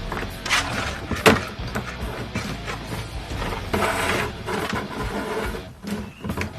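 Background music, with a few sharp clicks and knocks from hand work on the motorcycle's turn-signal parts, one just after a second in and a couple near the end.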